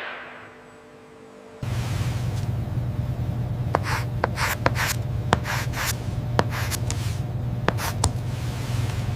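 A steady low mechanical hum with rubbing, scraping noise and scattered sharp clicks and short hisses, starting suddenly about a second and a half in.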